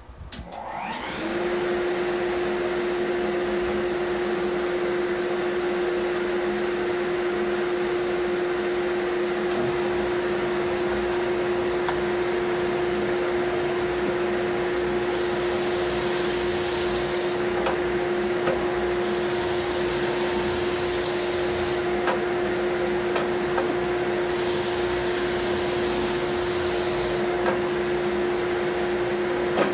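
Workshop dust collector switched on: its motor winds up within the first second and settles into a steady hum. From about halfway, hissing comes and goes in bursts of two to three seconds.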